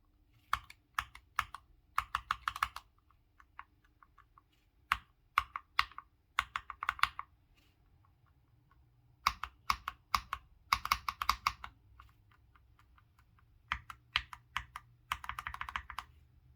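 Keystrokes on a Hator Skyfall TKL Pro mechanical keyboard with PBT keycaps, fitted with a mix of switches under test. Single key presses alternate with quick runs of rapid typing, with short pauses between the groups.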